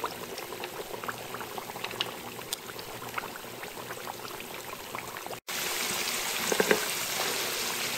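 Taro sticks deep-frying in hot oil in a wok: a steady bubbling hiss with many small crackles. About five seconds in the sound breaks off briefly, and after that the frying is louder.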